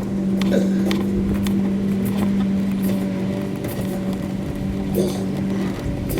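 A small engine running steadily at a constant speed, dropping away near the end, with scattered light clicks and knocks of tools on metal.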